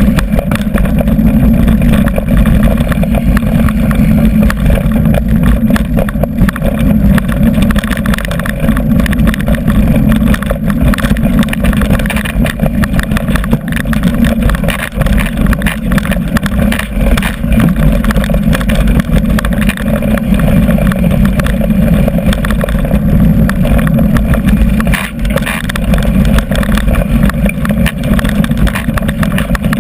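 Mountain bike running fast downhill over a rough dirt track, heard through a GoPro Hero2: a steady low rumble of wind and tyre noise with dense knocks and rattles from the jolting ride.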